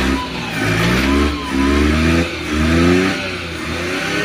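Suzuki Multicab van's engine running and being revved about four times in a row, each rev rising and dropping back. It is running with its rain-wetted distributor cap wiped dry.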